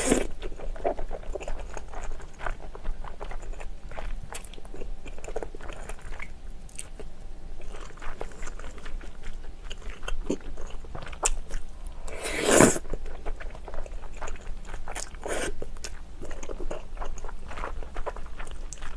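Close-miked chewing and wet mouth sounds of eating cream spaghetti mixed with glass noodles, with noodles slurped in; one louder slurp comes about twelve seconds in.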